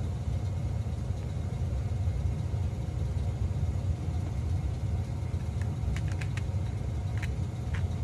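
Steady low background rumble, with a few faint light clicks near the end.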